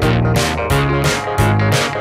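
Background music: guitar and bass over a steady beat of about three strokes a second.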